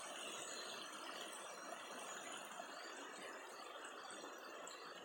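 Shallow rocky stream flowing over stones, a faint, steady rushing trickle.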